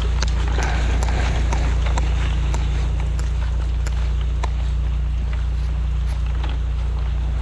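High-pressure drain jetter running steadily with a low drone while its hose is fed into a flooded storm-water drain, with the hiss of water and scattered sharp ticks.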